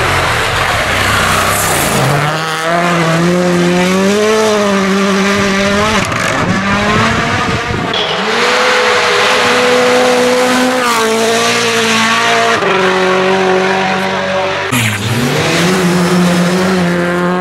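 Rally cars' turbocharged four-cylinder engines at full throttle on snow stages, in several separate passes. Engine pitch climbs and steps down as the drivers change gear, over a hiss of tyres and thrown snow.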